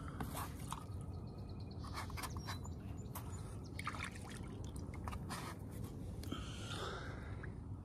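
Water trickling and dripping against the side of a stand-up paddle board, with many small scattered clicks and light knocks over a steady low rumble.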